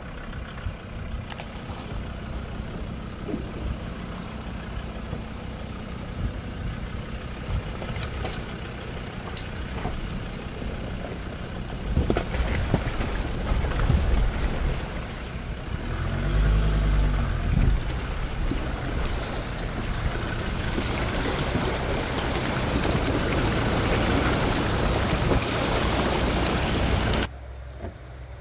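Off-road 4x4 being driven: the engine runs with a low rumble under road and wind noise that grows louder through the second half. The engine note briefly swells and falls about two-thirds of the way through, and the sound cuts off suddenly near the end.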